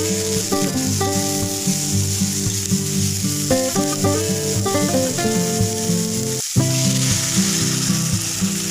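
Food frying in a pan with a steady sizzle, under background music of changing notes that drops out for a moment about two-thirds of the way through.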